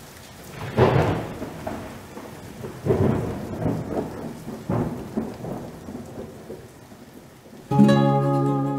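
Steady rain with thunder rumbling three times. A plucked-string music tune starts near the end.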